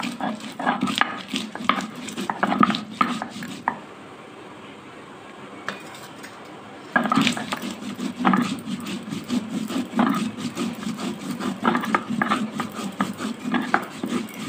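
Grinding stone rolled and pushed back and forth on a flat stone slab (shil-nora), stone scraping and knocking on stone in quick rhythmic strokes as cumin, soaked poppy seeds and green chillies are ground into a paste. The strokes stop for about three seconds a little after the start, then carry on.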